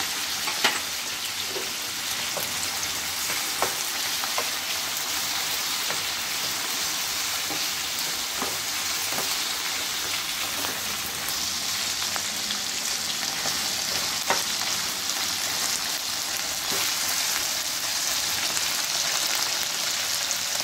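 Cubed eggplant and potato sizzling steadily in hot oil in a nonstick frying pan as a wooden spatula stirs them, with a few sharp clicks of the spatula against the pan.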